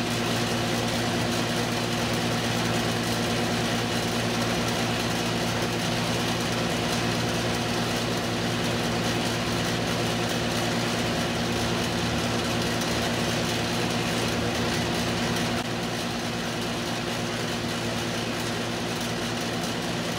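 Steady drone of a room ventilation unit: a low, even hum with a hiss of moving air, dipping slightly in level about three-quarters of the way through.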